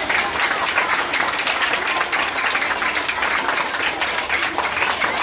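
Applause from a group of children clapping, with voices mixed in.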